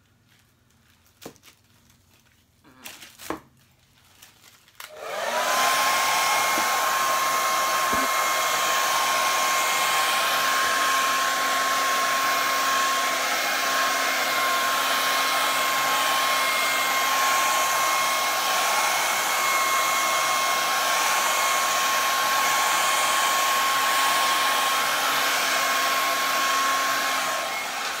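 After a few faint clicks, a hand-held hair dryer switches on about five seconds in. It runs steadily, a constant whine over its rush of air, as it blows poured acrylic paint across a canvas. It switches off near the end.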